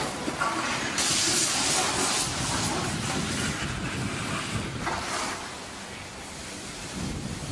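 Heavy vehicles moving slowly, a livestock lorry and a tractor: a low engine rumble with a loud hiss lasting about a second, starting a second in, and a shorter hiss near the end.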